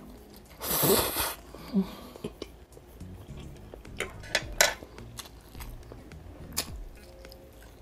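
Noodles slurped in one loud, noisy burst about a second in, followed by a fork clicking and scraping against a plate several times.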